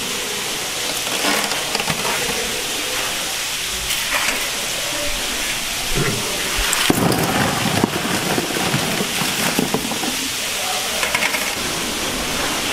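Oysters in their shells rattling and clattering in a wire-mesh basket, busiest from about seven to eleven seconds in, over a steady rushing noise.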